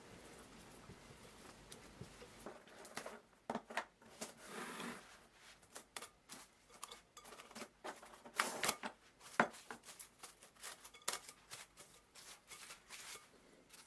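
A rubber spatula scrapes batter around a glass bowl, then plastic cling wrap is pulled off its roll and crackles and rustles in many irregular bursts as it is stretched over the bowl and pressed around the rim.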